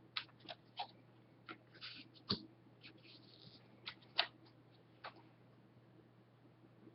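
Hockey trading cards being handled: a string of light clicks and short papery rustles as cards are slid and flicked through a pack, the loudest about two and a half and four seconds in.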